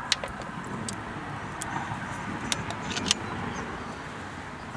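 Screwdriver and small metal parts clicking sharply a few times while a wire terminal screw is backed out on an engine component, over a steady background hum.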